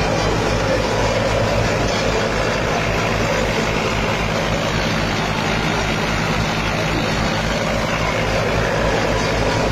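Shaft-driven wheat thresher running steadily while threshing wheat. A steady low engine drone with a rapid low pulse, and a rushing churn of straw and chaff through the machine over it.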